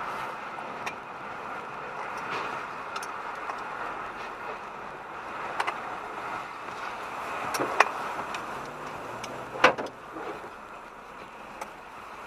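Steady road and engine noise of a car driving, heard from inside the cabin, with a few sharp clicks or knocks; the loudest come about two-thirds and three-quarters of the way through.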